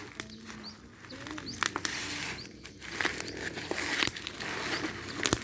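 Bubble wrap and plastic packaging being handled and pulled open: rustling and crinkling with scattered sharp clicks.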